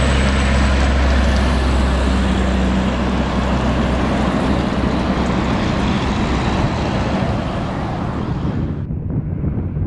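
Road train with three bulk tanker trailers driving past close by: a steady low diesel drone under a loud rush of tyre and road noise, fading as the trailers roll by. About nine seconds in the sound cuts to a quieter rush with wind on the microphone.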